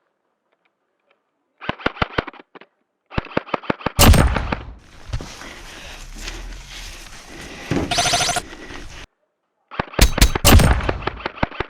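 Airsoft guns firing in quick bursts of sharp clicking shots, several strokes a second. A louder crack comes about four seconds in, followed by a few seconds of noisy rattle. The sound drops out to dead silence at the start and again for under a second near the end.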